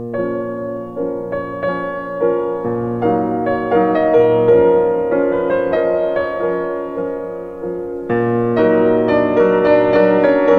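Background music: a piano playing slow held chords that change every second or so, growing fuller about eight seconds in.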